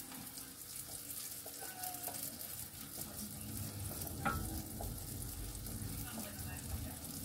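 Wooden spoon stirring baked beans in a stainless steel saucepan, over a steady sizzle of mushrooms frying in butter in the pan alongside. One light knock about four seconds in.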